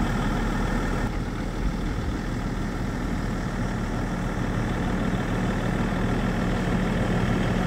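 Car driving across a field, its engine running with a steady, even low hum, heard from inside the car.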